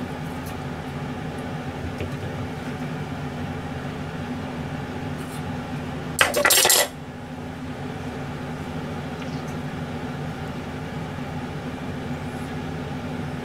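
Kitchen knife work on a watermelon on a plastic cutting board over a steady low hum. About six seconds in there is one short, loud scrape or clatter lasting under a second.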